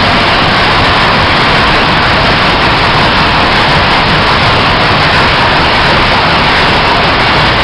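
Textile mill machinery running: a loud, steady, even din with no distinct beat or tone.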